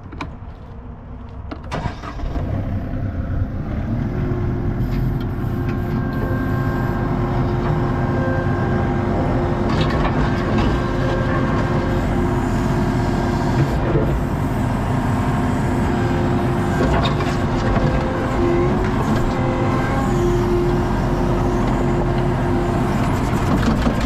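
Diesel engine of an ASV RT-40 compact track loader, heard from inside the cab, throttled up about two seconds in and then running steadily under load while the machine scoops broken concrete slabs. A few knocks from the concrete are heard along the way.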